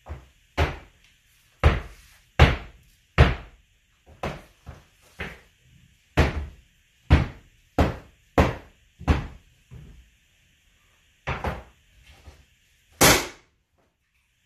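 Pneumatic nailer fastening hardwood floor boards, firing in a series of sharp, irregular shots about half a second to a second apart. Near the end comes one longer, hissing burst.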